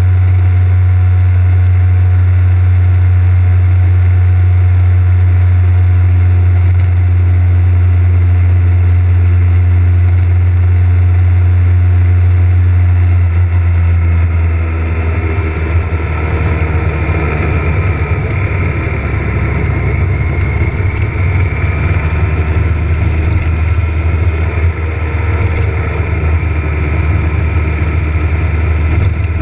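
Motorcycle riding sound picked up by a bike-mounted action camera: engine and wind noise as a loud, steady low drone, which turns rougher and more uneven about halfway through.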